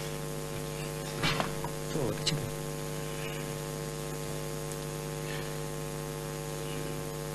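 Steady electrical mains hum from the hall's sound system, with a few brief, faint voices about one and two seconds in.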